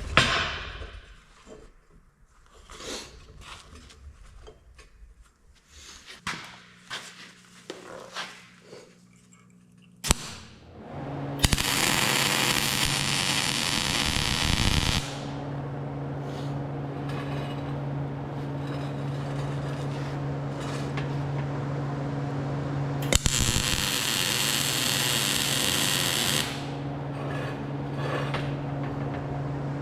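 Light knocks and clinks of shop work, then a steady machine hum with two loud stretches of hiss, each lasting a few seconds.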